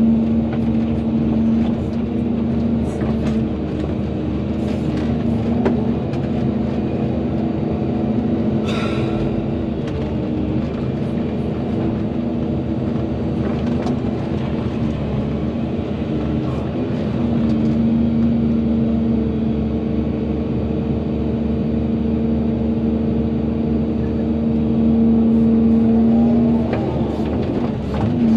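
Volvo EC220DL excavator's diesel engine running steadily as the machine works, with a brief hiss about nine seconds in and the engine note louder for a stretch toward the end.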